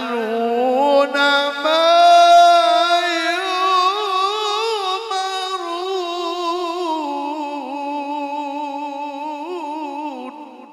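A male Quran reciter (qari) singing a long melismatic passage in tilawah style, holding drawn-out vowels with wavering ornaments. The pitch steps up about two seconds in and falls back in steps later, before the voice stops near the end and a short echo dies away.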